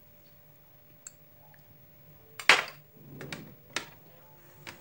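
Tableware clinking: a metal spoon, a small glass bowl and a ceramic plate knocking together as dal is spooned onto rice. One sharp clink comes about two and a half seconds in, followed by a few lighter taps.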